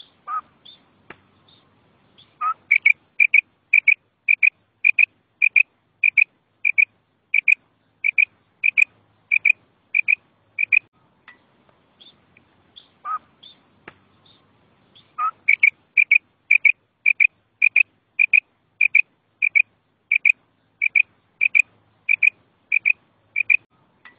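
Female quail (batair) calling: a run of short, identical high notes, about two a second, lasting about eight seconds, then after a pause of about four seconds a second such run. Each run opens with a single lower note.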